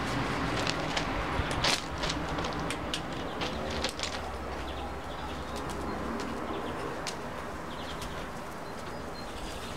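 Steady low rush of a running forge, with a handful of sharp clicks and crunches in the first four seconds, the loudest about two seconds in. A few faint bird chirps.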